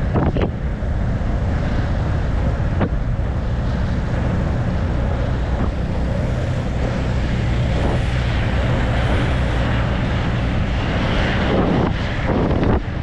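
Wind buffeting the microphone of a camera moving at inline-speedskating pace: a steady, loud low rush with a few short clicks.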